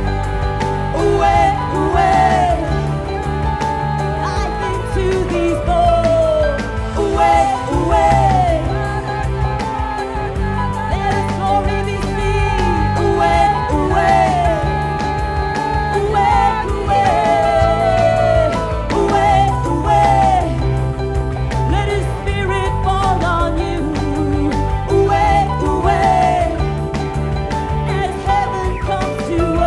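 Live church worship band music: a wavering melodic lead line over sustained chords and a steady bass.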